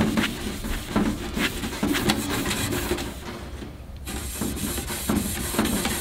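Red Scotch-Brite abrasive pad scrubbing stainless steel sheet metal in brisk back-and-forth strokes, polishing the grill body to a grain finish. The strokes pause briefly a little past three seconds in, then resume with a brighter, hissier scrape.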